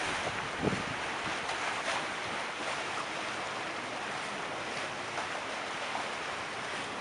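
Steady rush of choppy sea water with wind on the microphone, and one brief low thump a little under a second in.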